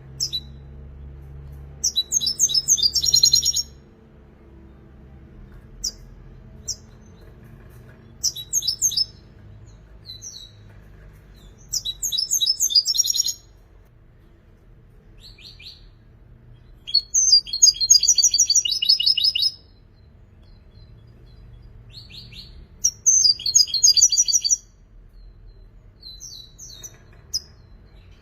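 European goldfinch singing: five bursts of rapid, high twittering song, each one to two and a half seconds long, with short single call notes between them.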